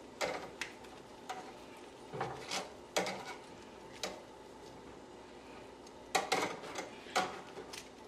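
Metal tongs clicking and knocking against a wire rack over a foil-lined sheet pan as pieces of glazed pork are picked up and turned over: scattered sharp clicks and light knocks, bunched more thickly near the end.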